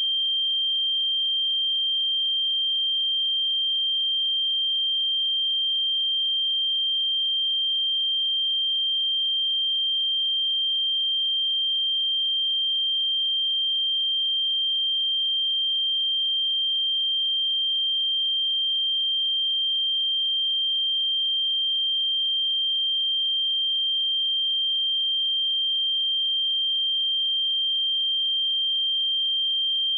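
A steady, pure high-pitched test tone: a 3168 Hz sine wave held at one pitch and level throughout.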